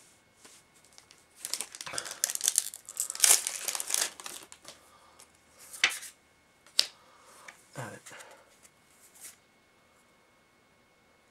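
Foil booster-pack wrapper being torn open and crinkled for about three seconds, followed by a few sharp clicks and taps of trading cards being handled.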